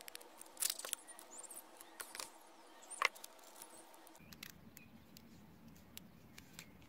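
Clear sticky tape being pressed and wrapped around a rolled-paper limb by hand: a few short crackly rustles in the first three seconds, then faint ticks.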